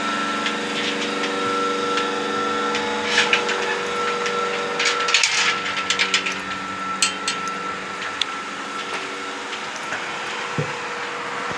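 Milking machine's vacuum pump motor running with a steady hum. Over it, bursts of scraping and a few knocks from a steel milk can being handled, from about three seconds in.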